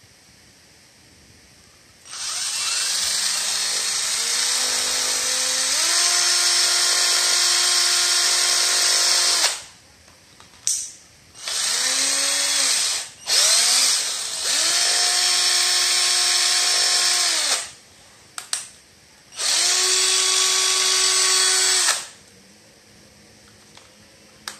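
Nankai 12V cordless drill running free with an empty chuck, its motor whine climbing in steps as the trigger is squeezed further. It is let off and run again several times: four longer runs and a few short blips, each spinning up at the start and winding down at the end.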